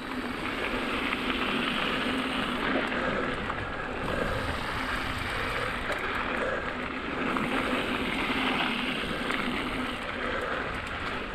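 Mountain bike rolling fast down a gravel trail: a steady rush of tyre noise over the gravel with the bike's rattle, and wind on the microphone.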